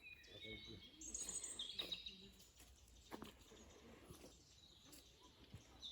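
Faint birdsong: a short run of high chirps about a second in, over quiet woodland ambience.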